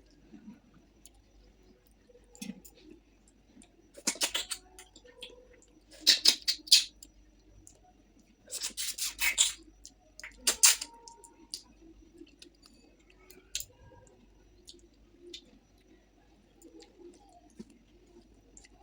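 Close-miked eating sounds: short crackly bursts of crunching about four, six, nine and eleven seconds in, with faint chewing between.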